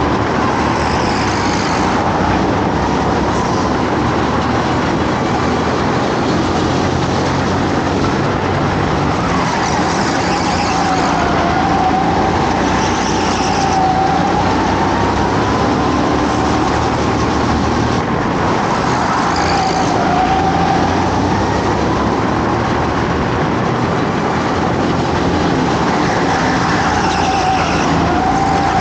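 Go-kart engine running hard at race pace, its pitch rising along the straights and dipping as the revs drop for corners, several times over, under steady engine and road noise.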